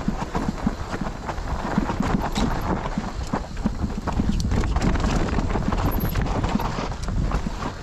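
Mountain bike clattering over a rough trail: rapid, irregular knocks and rattles from the bike and tyres, over a steady low rumble.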